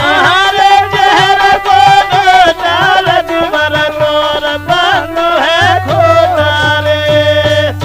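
North Indian folk Holi music: an ornamented melody with gliding notes played over steady dholak drumming.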